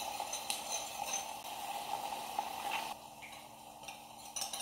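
Spoon stirring cornstarch and water in a ceramic bowl with a few light clinks, over a soft sizzle from an electric skillet of tofu in sauce; the stirring stops about three seconds in.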